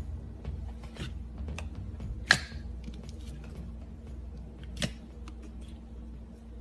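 Slime being squeezed and poked by hand, giving scattered sticky clicks and pops, the loudest about two seconds in, over a low steady hum.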